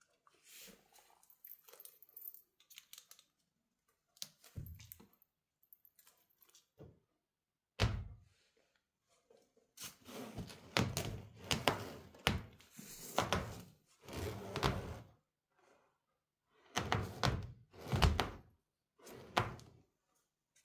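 Cat playing with toys: irregular knocks, thuds and rattles, with a single sharp knock about eight seconds in and busier runs of thumping and rattling after that.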